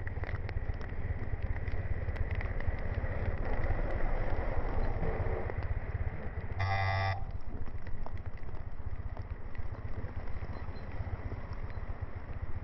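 Rumbling noise of a moving vehicle, with a brief pitched blare about seven seconds in.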